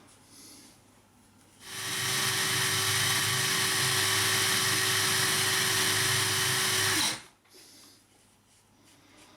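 Cordless drill spinning a brass wire brush attachment, cleaning a brass screwdriver: a steady whirring with a hiss, starting about two seconds in, running for about five seconds and cutting off suddenly.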